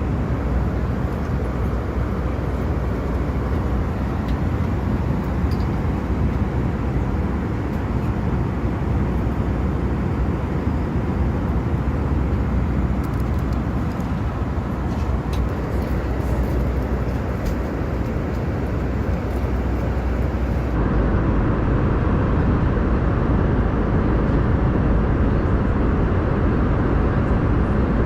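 Steady cabin noise inside an Airbus A319 airliner: the even rush of engines and airflow. About twenty seconds in, the sound changes abruptly and gets slightly louder.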